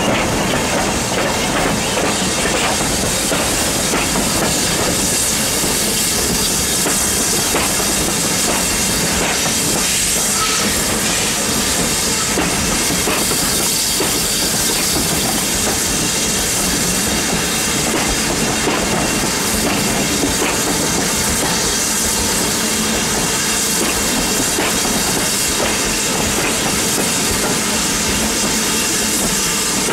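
A steam train passing slowly: S&DJR 7F 2-8-0 No.88 and its coaches, with a steady hiss of steam and the carriage wheels clicking over the rail joints.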